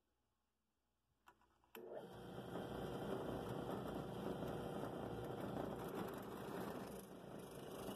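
Benchtop drill press switched on with a click almost two seconds in, then its motor running steadily as a twist bit is fed down into a wooden block to bore an axle hole.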